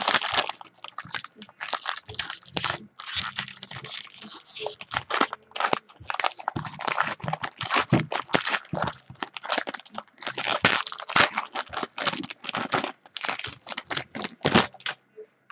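Crinkling and tearing of a trading card pack's wrapper being opened, with irregular rustling and crackling as the wrapper and cards are handled.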